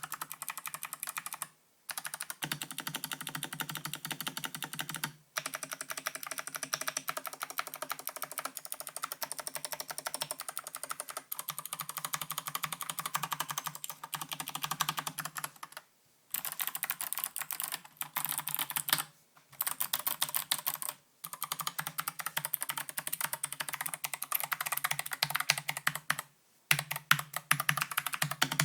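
Fast typing on a Flesports MK870 mechanical keyboard with clicky Kailh Box Pink switches and Drop MT3 Camillo keycaps: a dense run of sharp key clicks, broken by brief pauses every few seconds.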